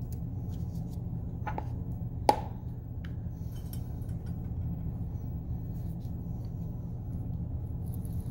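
Two short sharp clicks about a second apart, the second louder, as a glass test tube of potassium chlorate is handled, over a steady low hum.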